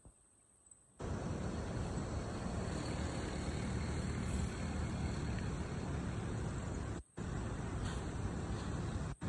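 Steady rushing, rumbling travel noise, like wind buffeting the microphone on a moving vehicle; it starts about a second in and drops out briefly twice at cuts.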